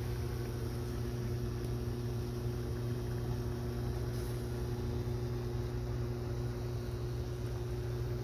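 Steady electric motor hum of a running kitchen appliance, a low mains drone with an even rushing noise over it.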